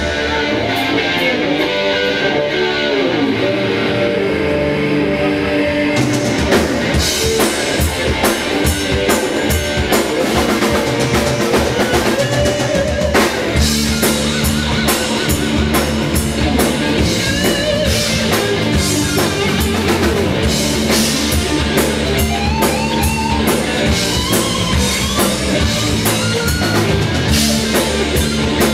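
Live rock band playing an instrumental passage on electric guitars and a drum kit, with no singing. The full drum beat with crashing cymbals comes in about six seconds in.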